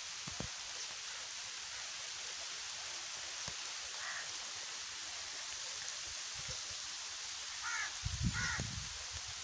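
Light rain falling, a steady hiss. A few short animal calls cut through it, once about four seconds in and twice, louder, near the end.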